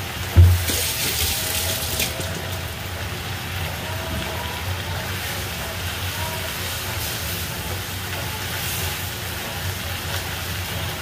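Vegetables simmering in a frying pan in a thin water-and-cornstarch sauce while a spatula stirs them, with one thump about half a second in and a steady low hum underneath.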